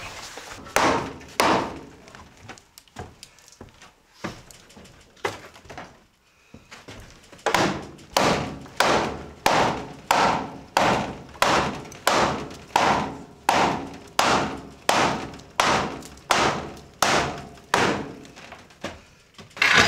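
Hammer strikes on a wooden framing board, driving a tight-fitting board into place in a wall frame. A few scattered knocks come first, then a steady run of blows about one and a half a second through the second half. The board is a little too long and thick for its gap, so it goes in tight.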